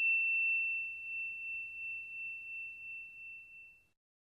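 The ringing tail of a single high bell-like chime: one clear steady tone fading slowly and dying away just before the end.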